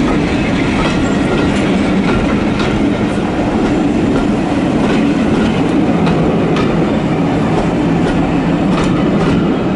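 British Rail Mark 1 passenger coaches rolling past at low speed: a steady rumble of wheels on rail, with sharp clicks as the wheels cross rail joints every half second to a second.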